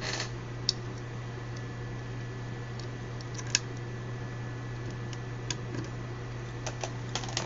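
A few scattered computer keyboard keystrokes: single sharp clicks about a second in and near the middle, then a quick cluster of them near the end, over a steady low hum.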